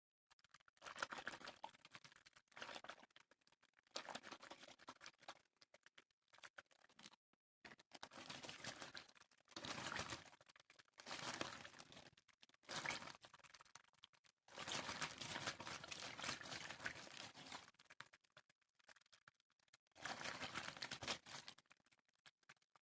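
Close-miked water sounds made by hand for ASMR: about ten bursts of splashing and swishing, each one to three seconds long, with short pauses between.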